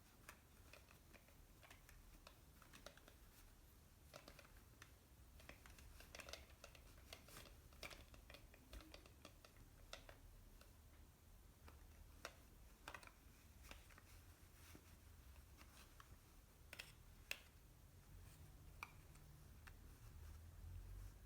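Faint, irregular taps and clicks from hands handling small objects and packaging, over a low steady hum.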